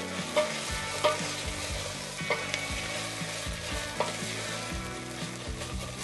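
Chopped onions and tomato concentrate sizzling in olive oil in a stainless steel pot while a wooden spoon stirs them. A few short knocks and scrapes of the spoon against the pot break into the steady sizzle.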